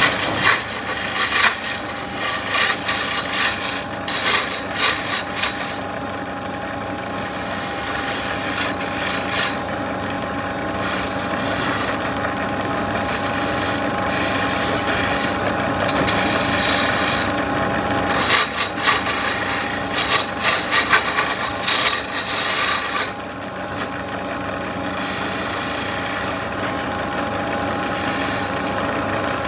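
CNC machine cutting a wooden sofa leg: a steady motor whine under rasping cutting noise that comes and goes, strongest near the start and again past the middle.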